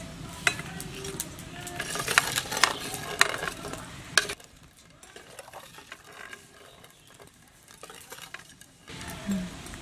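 A metal spoon clinking against a steel bowl and a china plate as fried gulab jamun balls are dropped one by one into sugar syrup, with small splashes. The clinks and knocks run for about four seconds, then give way to a quiet stretch.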